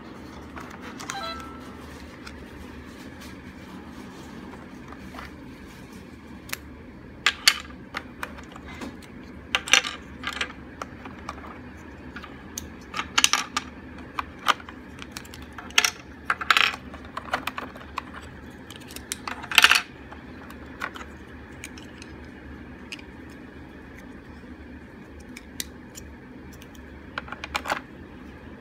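Vehicle-shaped puzzle pieces being lifted out of a red plastic toy tray and set down on a table: a scattered series of sharp clacks and taps, the loudest about twenty seconds in, with a few more near the end.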